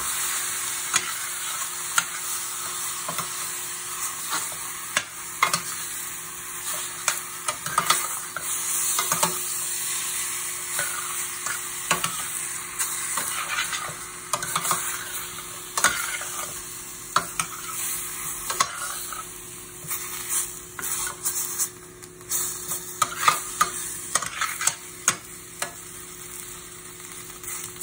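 Pork ribs and chopped vegetables sizzling as they sear in a hot stainless steel pan, no oil added, only the meat's own fat. A metal spoon turns them, scraping and clicking against the pan many times.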